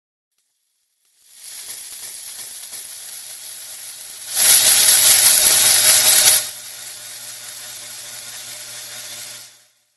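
Powered surgical bone saw running as a steady noisy whir with a low hum, starting about a second in; it gets much louder for about two seconds in the middle as it cuts through the transverse tarsal joints of the foot, then runs on more quietly until it stops near the end.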